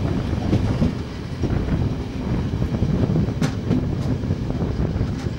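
Regional passenger train running on the rails, heard from an open carriage window: a steady wheel rumble with a few sharp clicks as the wheels pass over rail joints and points, the clearest about three and a half seconds in and another near the end.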